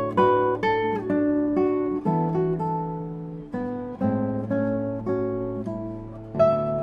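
Background music: solo acoustic guitar playing a melody of plucked notes over bass notes, each note ringing and fading.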